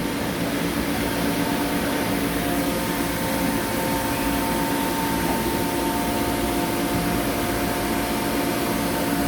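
CNC machine running steadily in a machining shop: an even mechanical hum made of a few steady tones over a broad hiss.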